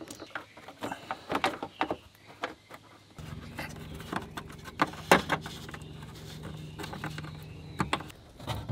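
Scattered clicks, taps and knocks of hands working plastic parts and a hose into a truck's front wheel well while fitting a windshield washer fluid reservoir. From about three seconds in, a steady low hum runs underneath.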